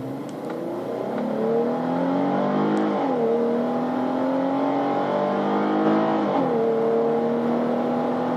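Dodge Charger V6 engine at full-throttle acceleration, heard from inside the cabin. The revs climb steadily and drop sharply twice, about three and six and a half seconds in, as the automatic transmission upshifts.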